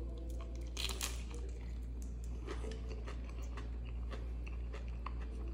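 A person chewing a mouthful of crisp tostada topped with nopal salad: irregular crunching and crackling, busiest about a second in, over a steady low hum.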